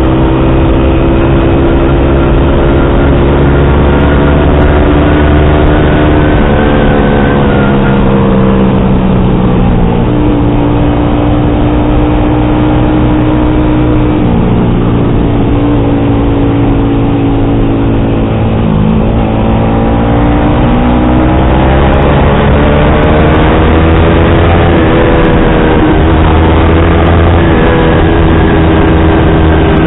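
Yamaha R15 V3's single-cylinder engine running loud through an SC Project aftermarket exhaust with the dB killer in, while riding. The engine note holds and steps between gears, falls away near the middle as the bike slows, then climbs through several gear changes in the second half.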